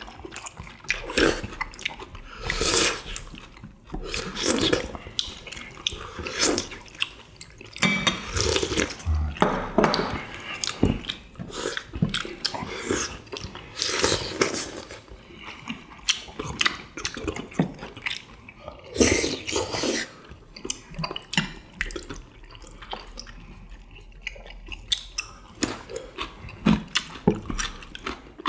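People eating tteokbokki in sauce: wet slurping and chewing in short, irregular bursts.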